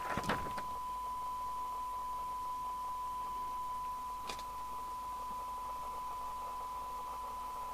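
Steady single-pitched test tone over a low hiss from the Binatone Route 66 CB radio's loudspeaker: the receiver demodulating the signal generator's tone-modulated test signal at a weak level of about 0.47 microvolts during a 12 dB SINAD sensitivity check. Two faint clicks, one just after the start and one about four seconds in.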